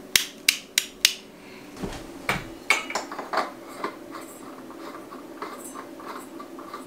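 Sharp metallic clicks and clinks from tools or hardware being handled: four loud clicks in quick succession within the first second, then a run of lighter knocks and taps that thin out.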